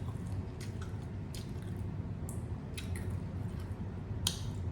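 Mukbang eating sounds from a homemade ground-turkey street taco: soft wet squishing with scattered light clicks close to the microphone, a sharper click about four seconds in.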